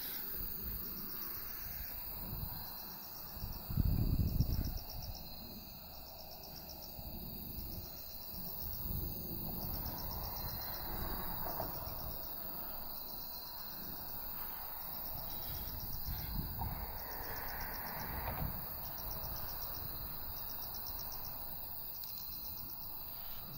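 Crickets chirping on and on in high pulsed trills broken by short gaps, over low rumbling noise that swells loudest about four seconds in.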